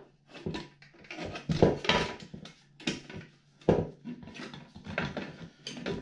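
Plastic washing-machine door frame parts and the glass bowl being handled and fitted together: irregular clicks, knocks and scrapes of hard plastic against plastic and the worktop, a few louder knocks scattered through.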